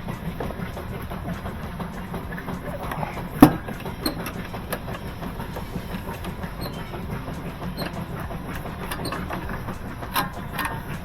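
Irregular metallic clicking and rattling of hand tools and washer parts being worked on, with one sharp loud knock about three and a half seconds in and a smaller one near the end.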